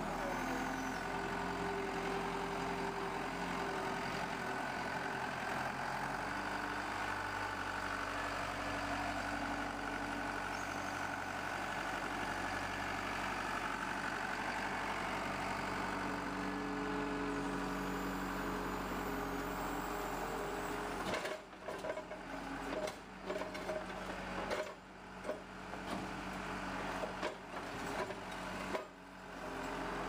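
Skid-steer loader and dump truck engines running steadily on a job site where asphalt is being torn out and loaded. Past the two-thirds mark the sound cuts in and out several times.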